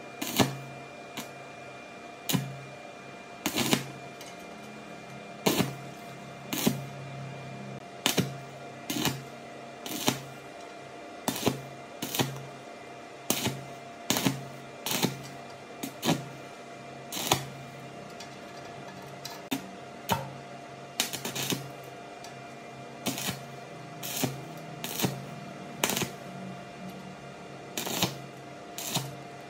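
Arc welding on a thin sheet-steel generator fuel tank with an inverter stick welder, done in short pulses: the arc is struck and broken about once a second, each strike a brief crackling burst that cuts off quickly. A steady hum runs underneath.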